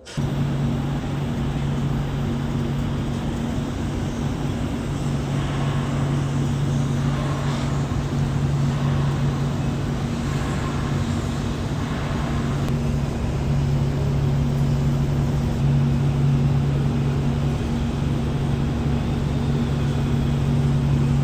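Carrier 30 HP VRF outdoor unit running under test: a loud, steady machine hum with a low droning tone.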